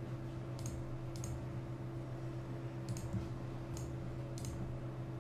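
Computer mouse clicking, about five separate sharp clicks spread unevenly, over a steady low electrical hum.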